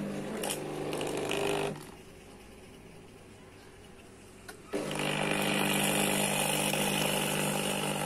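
ACA espresso machine's pump running with a steady buzz as it pushes water through the group head. It cuts out about two seconds in and starts again about five seconds in, louder and with a hiss. The machine is working normally again after repair.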